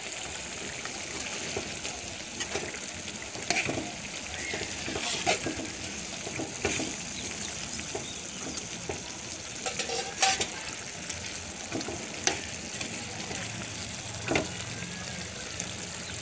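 Chicken in masala sizzling steadily as it fries down in a pan, the masala roasting and thickening. Short clicks and knocks come now and then as a slotted spoon stirs it against the pan.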